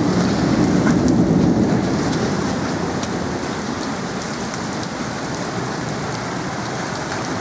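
Heavy rain and hail coming down in a storm: a steady hiss of rain with many small sharp ticks of hailstones striking. A low rumble swells over the first couple of seconds, then eases.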